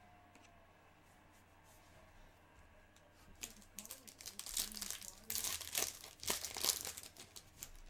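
A trading-card pack wrapper being torn open and crinkled. It starts a little over three seconds in, after a quiet start.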